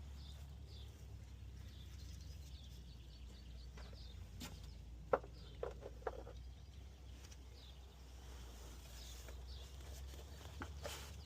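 A steady low background hum with a few short clinks about five to six seconds in, the first the loudest, as tools and transmission parts are handled; faint bird chirps.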